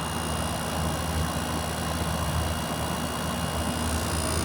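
Frigidaire window air conditioner running in cooling mode, heard from its outdoor side by the fan: a steady low hum with even fan noise.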